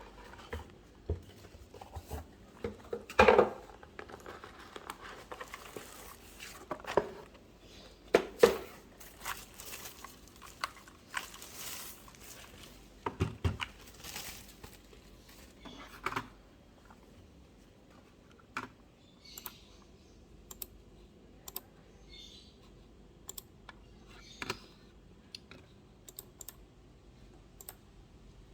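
Keychron K2 mechanical keyboard being handled and pressed: scattered key clicks and a few heavier thumps, with rustling around ten to fifteen seconds in, then sparser, lighter clicks.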